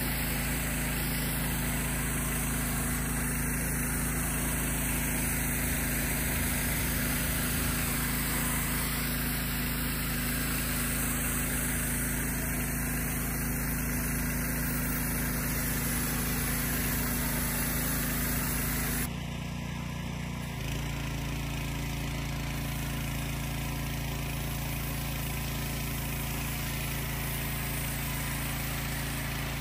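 Pressure washer running steadily with its wand spraying water onto a car's paint: a constant motor hum under an even hiss of spray. About two-thirds of the way through the sound drops a little and changes to a different steady mix of hum and spray.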